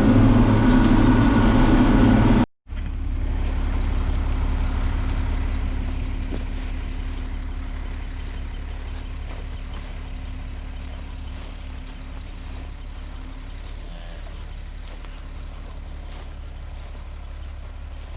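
Farm tractor engine running loudly. About two and a half seconds in, a cut leads to a lower engine rumble with a steady hum that slowly fades.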